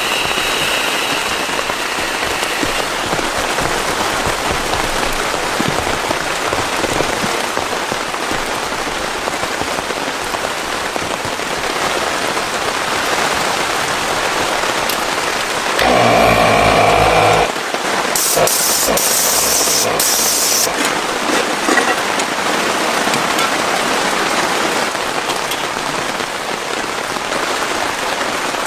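Heavy rain falling steadily. About halfway through, a low pitched sound lasts a second and a half, followed by a few seconds of higher hissing.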